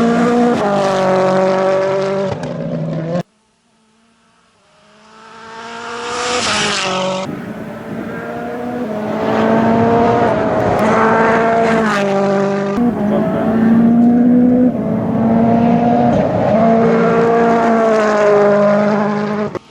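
WRC2 rally car engines at full throttle, revving up and dropping in pitch at each gear change. About three seconds in the sound cuts out suddenly. A car then swells in as it approaches and passes, and more hard-accelerating runs follow, with abrupt switches between them.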